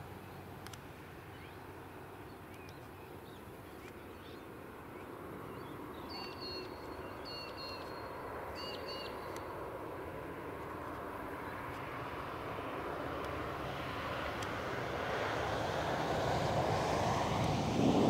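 A distant engine growing steadily louder as a vehicle approaches, loudest at the very end. A few short chirping bird calls come through about six to nine seconds in.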